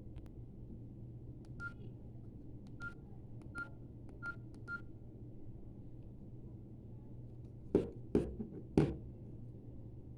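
Samsung Metro 313 keypad being pressed: five key presses, each with a click and a short beep, spaced under a second apart. Near the end come three louder knocks in quick succession, over a steady low hum.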